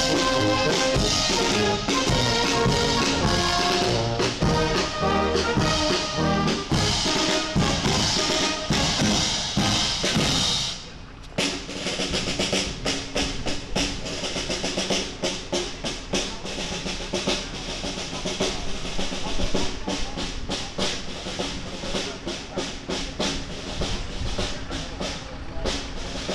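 Brass marching band with drums playing a march. About eleven seconds in the sound breaks off briefly, then the band goes on quieter and farther off, its regular drum beat standing out.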